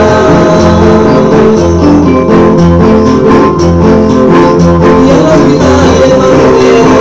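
Two acoustic guitars strummed together in a steady, rhythmic corrido accompaniment, with chords changing every second or so.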